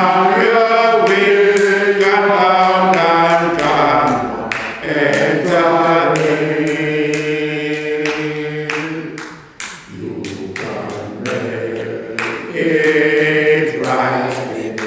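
Choir singing in sustained, held notes, with short pauses between phrases about five and ten seconds in.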